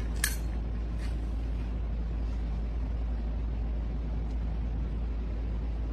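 Steady low hum over background noise, with a short clink about a quarter-second in as a stainless steel water bowl is set down on a tile floor.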